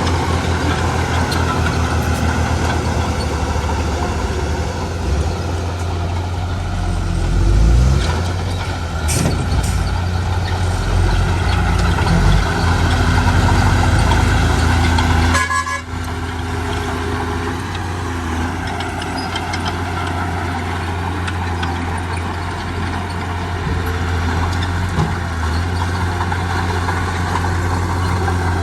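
Heavy diesel engines of earthmoving machinery running steadily with a low drone, swelling louder at times and dropping off abruptly about halfway through.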